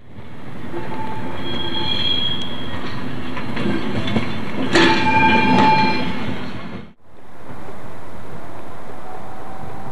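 Railway wagon wheels squealing and screeching on the rails, with clanks and knocks, loudest about five seconds in. The sound breaks off about seven seconds in and gives way to a steady, even rumble.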